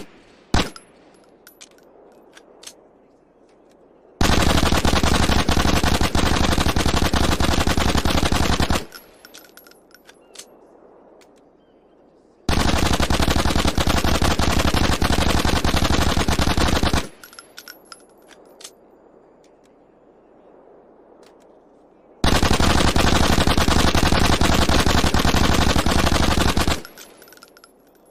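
Suppressed FN P90 submachine gun firing three long fully automatic bursts of about four and a half seconds each. A single sharp report comes just after the start, and a few light clicks come between the bursts.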